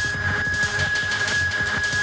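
Electronic dance music with a pounding beat and a steady high synth tone.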